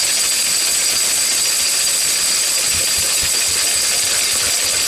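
Lister D single-cylinder stationary engine running steadily, belt-driving a small corn grinder that turns empty with no corn in it. A steady high whine sits over the engine noise.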